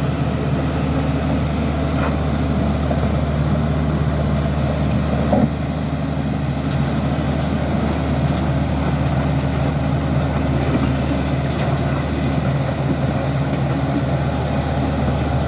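Bulldozer's diesel engine running steadily with a low hum, with a single short knock about five seconds in.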